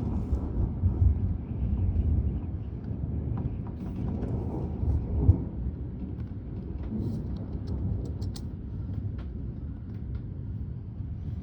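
Rolling thunder from a severe thunderstorm: a long, low rumble that swells about a second in and again about five seconds in, with scattered faint ticks over it.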